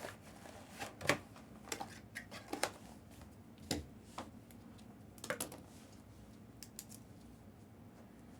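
Scattered light clicks and taps of small objects being handled, irregular and a few per second, over a faint steady hum.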